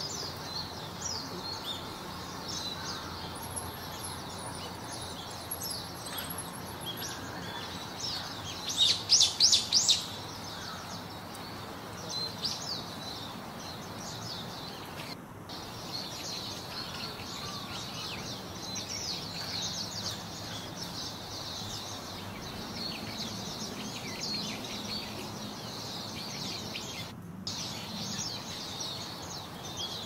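Female rose-ringed (ring-necked) parakeet calling: a run of about five loud calls in quick succession about nine seconds in. Around them, many small chirps carry on over a steady low background noise.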